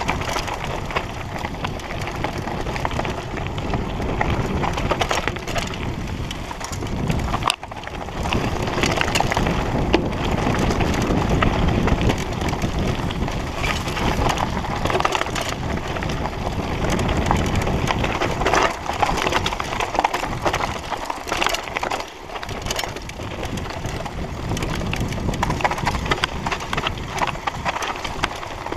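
Mountain bike rattling and clattering down a rough, stony dirt singletrack, heard from on the bike: a steady crunch of tyres on dirt and loose stones, with many sharp clacks as the bike jolts over the bumps.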